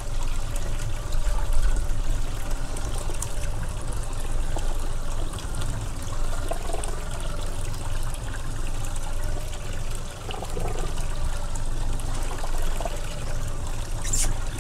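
Water trickling and sloshing on a small fishing boat, over a steady low rumble.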